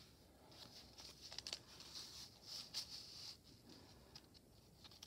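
Faint rustling of paper as a paper tag is slid into a journal pocket and the pages are handled, in several short rustles with a few small taps.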